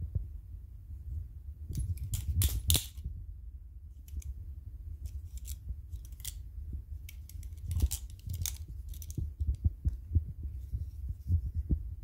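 Balisong (butterfly knife) being flipped: its handles and blade click and clack against each other in quick irregular runs, over a steady low rumble.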